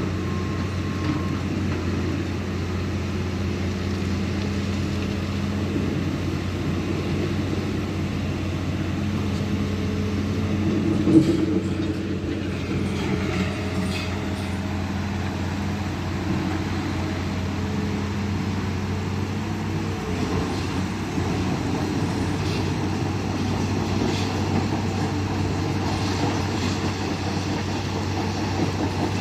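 Hitachi hydraulic excavator's diesel engine running steadily while working stone, with one sharp knock about eleven seconds in.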